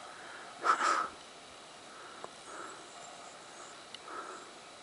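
A person breathing close to the microphone, with one short, sharp breath through the nose about a second in that stands out above the quiet outdoor background.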